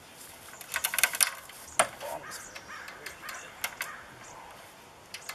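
Come-along ratchet clicking as it is cranked to pull the wire fence fabric tight: a quick run of clicks about a second in, then single clicks.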